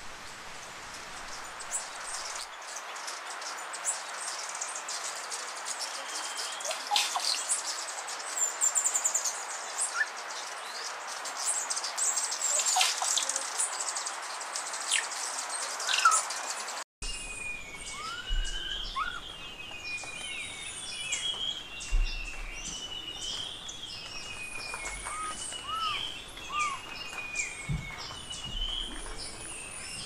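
Wild birds chirping and calling over a steady hiss. After a sudden cut about halfway, a different set of birds gives repeated short falling whistles and a few arched notes.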